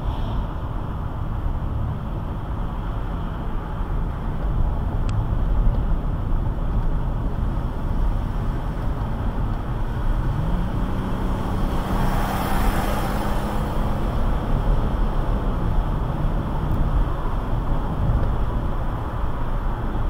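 Car driving at speed, heard inside the cabin: steady road and tyre noise under a low engine hum. About ten seconds in the engine note rises as the car speeds up, then eases back a few seconds later. A brief rush of noise comes as it passes another vehicle.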